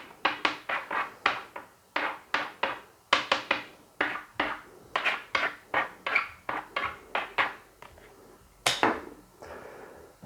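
A run of sharp knocks or taps in uneven groups, several a second. They stop about eight seconds in, followed by one last knock nearly a second later.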